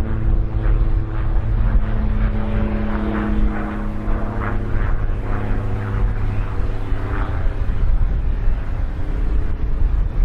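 Case IH tracked tractor's diesel engine running steadily under load as it pulls a wide cultivator through the soil, a continuous drone over a low rumble.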